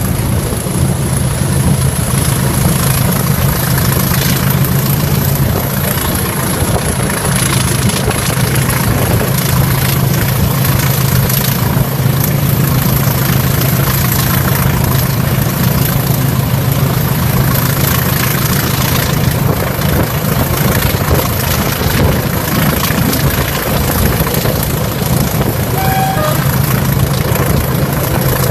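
English Electric Class 20 diesel locomotive engine running steadily with the train under way, a low drone heard through an open carriage window. It is mixed with wheel-on-rail noise and wind rush, and has a thin high whistle above.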